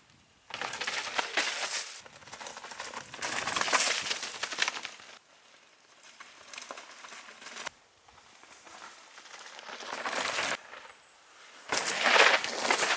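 Mountain bike riding over a dirt trail: tyres crunching and rattling over loose ground, in several short stretches that cut off abruptly.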